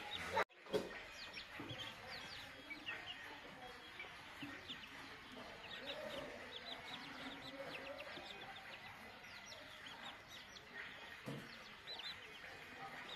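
Chickens clucking, with many short, high, falling peeps in quick succession. The sound cuts out briefly about half a second in.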